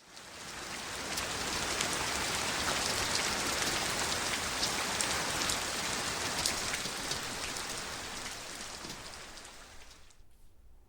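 Recorded rain falling, with scattered ticking drops, played back through hi-fi loudspeakers in a room. It fades in over the first couple of seconds and fades out near the end.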